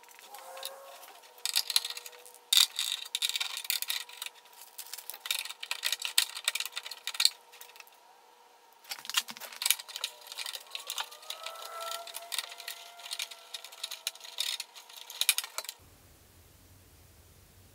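Rapid, irregular clicks, taps and rattles with rustling from hands-on work stripping a car's interior trim, over a faint steady tone. The clatter stops suddenly near the end, leaving a low hum.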